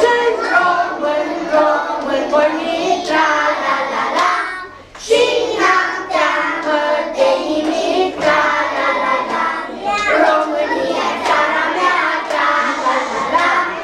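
A group of preschool children singing a Romanian patriotic song together, with hand claps. The singing breaks off briefly about five seconds in.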